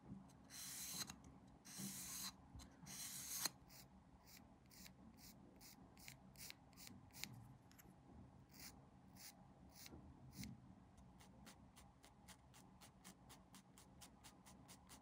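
Hand sanding of a small plastic model-kit part in rubbing strokes: a few longer strokes at first, then short, quicker ones that settle at about three or four a second near the end.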